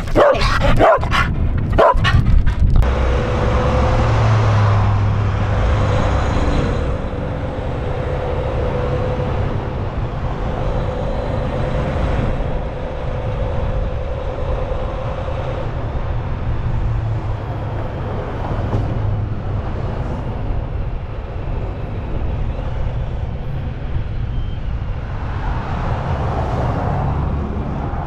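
A dog gives a few short calls in the first couple of seconds. Then a semi-truck's engine and road noise take over as the truck drives, a steady low rumble that carries a faint level hum for a while.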